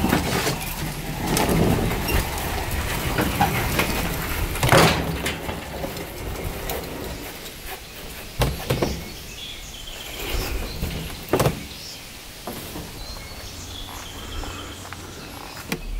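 Wooden boat cradle on small casters rolling up a ramp onto a wooden trailer deck, with rumbling and scraping and several sharp knocks, the loudest about five seconds in. The second half is quieter, with a few scattered knocks.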